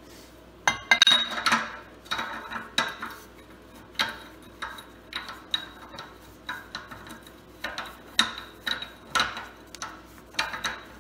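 Steel hand tool and spindle nut clinking against the hub of a Dana 60 full-float axle. The nut is being tightened to set the wheel bearing preload. Irregular sharp metal clinks with a ringing tone, about one or two a second, the loudest cluster about a second in.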